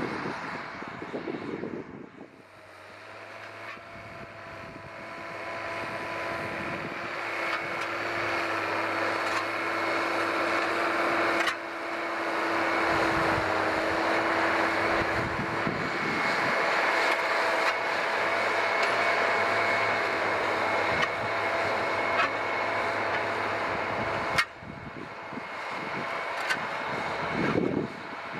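Ford 8830 tractor's 6.6-litre diesel engine running steadily under load while pulling a disk through sod. It is a steady drone with a few fixed tones, growing louder over the first several seconds, with small sudden changes in level around eleven and twenty-four seconds in.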